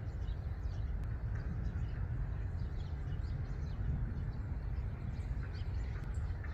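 Eurasian tree sparrows giving many short, high chirps scattered throughout, over a steady low rumble.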